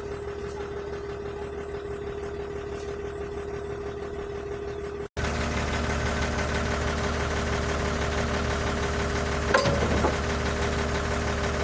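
Heavy diesel engine idling steadily, a vehicle of the truck-and-trailer or road-roller loading job. It breaks off for an instant about five seconds in and comes back louder, with a short sharp sound rising over it a little after nine seconds.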